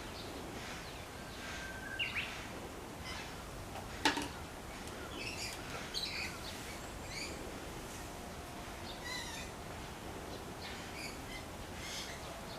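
Small birds chirping and calling in short, scattered notes over a steady outdoor hiss, with one sharp knock about four seconds in.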